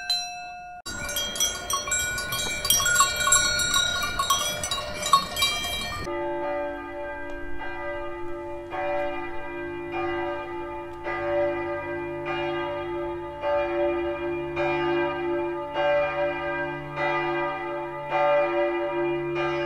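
Bells ringing: for about the first five seconds a dense clanging of many bells together. Then, after an abrupt change, the church bells of St. Sixtus toll about once a second over their lingering hum.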